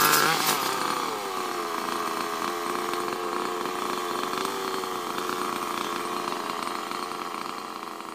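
Backpack brush cutter engine dropping from high revs to a steady, lower running speed about a second in, then running evenly and fading away near the end.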